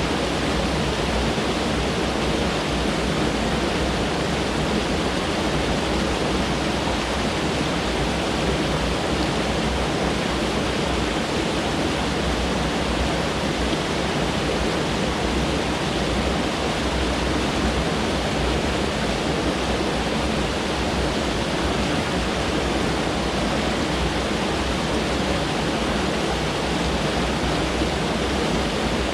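Mountain stream water rushing, a steady, unbroken rush.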